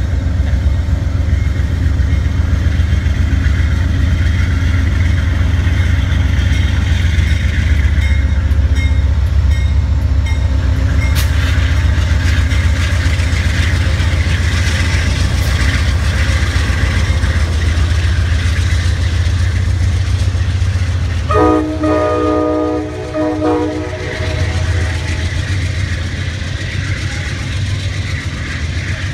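Amtrak Pennsylvanian's diesel locomotive pulling a passenger train out of the station beneath, with a steady low engine rumble and the clatter of wheels on rail. About two-thirds of the way through, the locomotive's multi-note air horn gives one blast of about two and a half seconds.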